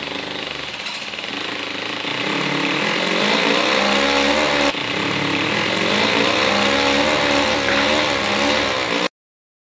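A small engine running loud and rough, its pitch rising and falling twice as it is revved, with a sudden break about halfway through; it cuts off abruptly near the end.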